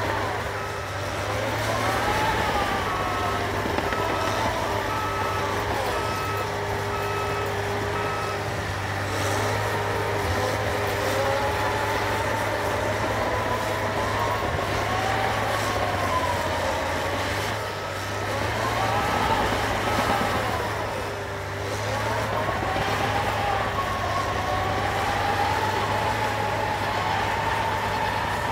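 Cat 953D track loader's diesel engine running and revving up and down as it works. Its backup alarm beeps in an even series during the first several seconds and again for a few seconds past the middle.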